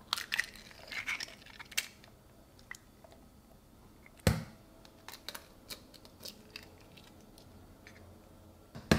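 Eggshell cracking and being pulled apart by hand over a plastic bowl, a quick run of small crackling clicks in the first two seconds. A single louder knock comes about four seconds in and another just before the end.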